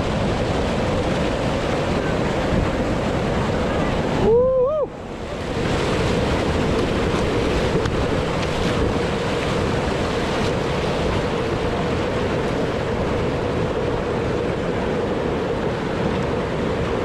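Whitewater rapids rushing and churning around a slalom kayak, with wind buffeting the action camera's microphone. Just past four seconds the sound goes briefly muffled, with a short rising-and-falling tone.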